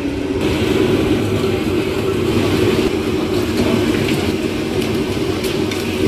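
Steady low mechanical drone, with a few faint light clinks of metal utensils over it.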